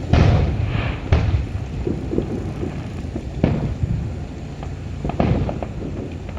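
Aerial fireworks shells bursting: a series of booms, the loudest right at the start, then about one, three and a half and five seconds in, each with a rumbling tail and some crackle.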